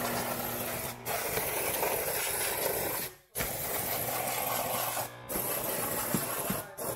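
Handheld steam cleaner jetting steam onto a gas stovetop burner in a loud, steady hiss with a low hum underneath, cutting out briefly four times.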